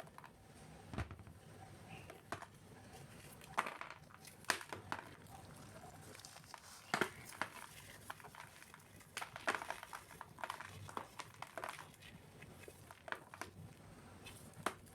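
Dry, crumbly cement cubes being crushed, giving irregular crisp crunches and crackles that come in clusters, with the loudest snaps about four and a half seconds in, near seven seconds and around ten seconds.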